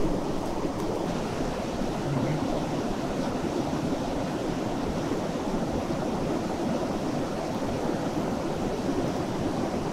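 Steady rushing of a mountain river, even and unbroken.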